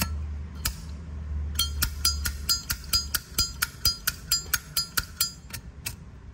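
Brass Zippo lighter being handled, with a few single metallic clicks and then a fast run of ringing metal clinks at about five a second, typical of the hinged lid being snapped open and shut.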